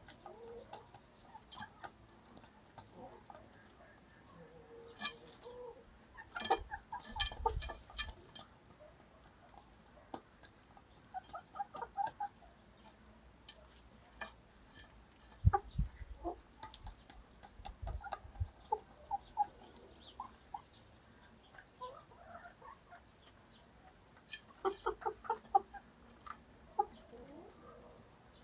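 Young chickens clucking in short runs of soft calls, with scattered sharp ticks and a few dull thumps in between.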